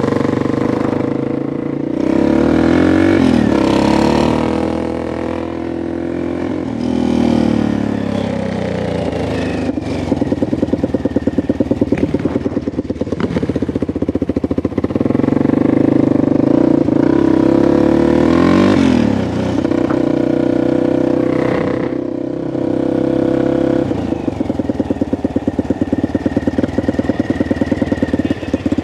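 Small off-road vehicle engine revved up and back down several times, its pitch rising and falling, running at a lower steady speed between the revs.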